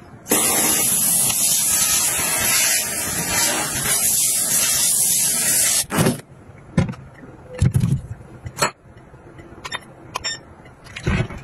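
Steady loud hiss of water spraying into a stainless steel sink, cutting off suddenly about six seconds in. Then a few scattered sharp knocks and clicks.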